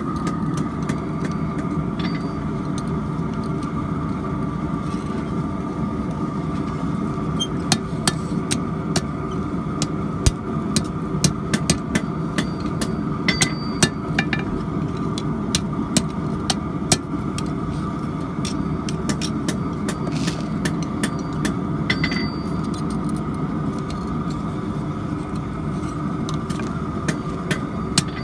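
Steady roar of a forge running, with irregular sharp hammer blows on steel starting about a quarter of the way in, as the coil-spring blade is hammered out.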